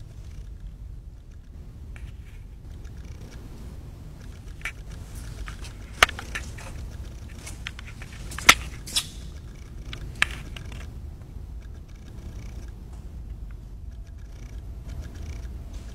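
A steady low rumble with a few sharp clicks and knocks, the loudest about six and eight and a half seconds in, from a hand-held camera being moved and handled.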